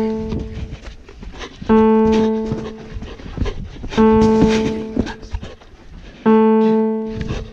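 Background piano music: a single low note struck over and over, about every two seconds and a bit, each one left to ring and fade. Underneath, a dog pants and brushes close to a camera strapped to its chest.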